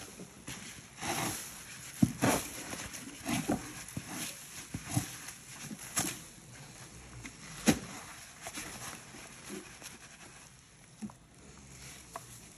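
Powdered cleanser poured onto wet, foamy sponges and paste: a soft hissing patter with irregular crackles and light taps, a few sharper ones about 2 s and 8 s in, tailing off near the end.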